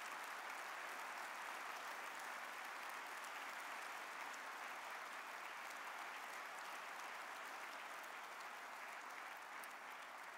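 A large audience applauding steadily, the clapping easing off slightly near the end.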